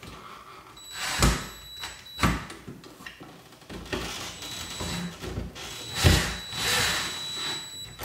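Cordless drill/driver running in short bursts, driving the screws that pull a plastic remodeling box's flip-out tabs tight behind the drywall, with a few sharp knocks in between.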